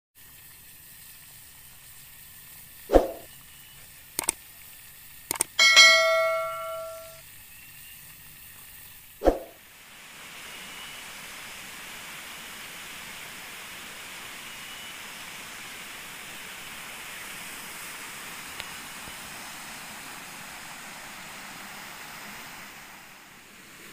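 Several sharp hits, one of them a bell-like chime that rings out for a moment about six seconds in. From about ten seconds in, a steady, even hiss of forest ambience takes over.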